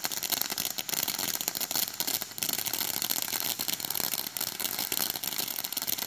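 Ground fountain firework spraying sparks: a steady, dense crackling hiss.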